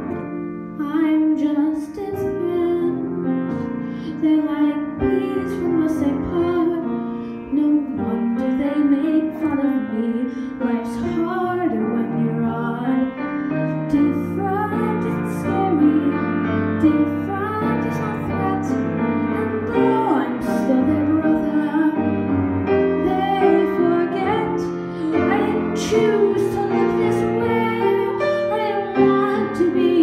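A young boy singing a show tune over piano accompaniment.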